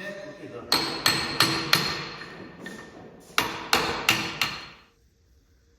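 Hammer striking metal: two quick runs of about four ringing blows each, with a short gap between them.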